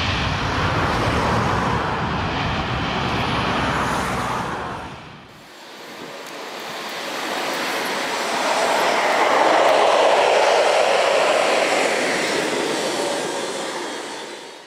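Boeing 737-800 CFM56 jet engines passing overhead on landing approach. One jet's roar fades out about five seconds in; then a second aircraft swells to its loudest a few seconds later, its whine falling in pitch as it goes past, and the sound cuts off suddenly at the end.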